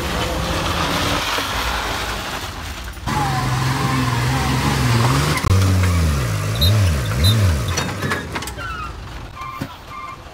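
Heavy truck engines on a muddy climb: a rumbling run, then after a sudden change a steady engine drone, then an engine revved up and down several times. Near the end a short electronic beep repeats at an even pace.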